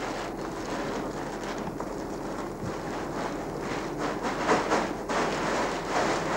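A large plastic bag of popcorn crackling and rustling as it is lifted and emptied into a popcorn display cabinet, popcorn pouring out. The loudest rustles come about four and a half seconds in.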